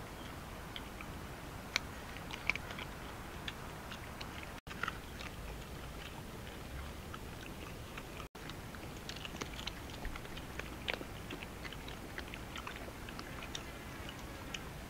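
Four dogs eating chopped cooked chicken together, a busy run of small wet chewing and crunching clicks over a faint steady background. The sound cuts out for an instant twice.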